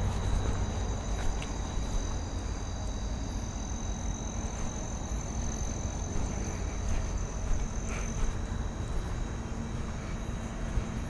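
Crickets trilling steadily at night in two high tones, the higher one stopping about eight seconds in, over a low continuous rumble of traffic from a nearby main road.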